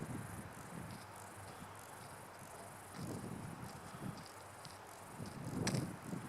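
Insects chirping in short, irregular bursts, crickets or grasshoppers, with several low thumps; the loudest thump, near the end, has a sharp click.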